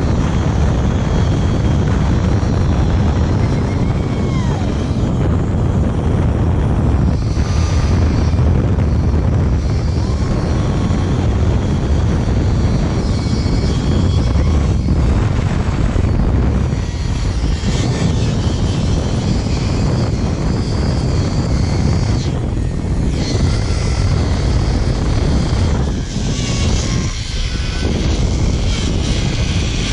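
Loud, steady rush of wind buffeting the microphone together with the zip-line trolley's pulleys running along the steel cable at speed. The sound eases a little near the end as the rider slows toward the landing platform.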